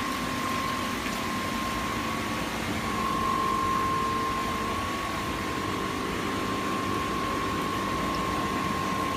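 Steady machinery hum and hiss of a coral farm's tank pumps and circulating water, with a constant whine running through it.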